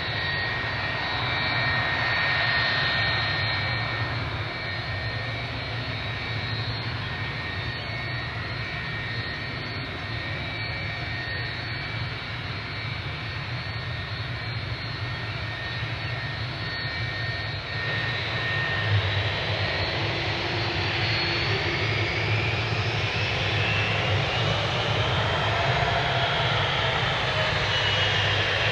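Twin-engine Boeing 757-300 jet airliner on its takeoff run, engines at takeoff thrust: a loud, steady jet noise with a high engine whine on top. About two-thirds of the way through the sound changes abruptly, and the whining tones then rise in pitch.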